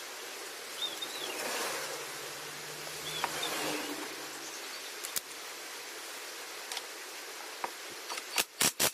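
Steady background hiss with a few faint clicks, then near the end four or five loud, short bursts in quick succession from a power driver spinning a socket onto a bolt of a brush cutter's engine mount.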